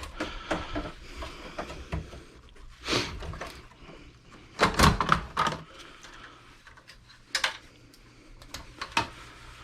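Scattered knocks and clatters of metal and plastic computer parts being handled while a desktop PC is taken apart, with a cluster of them about five seconds in.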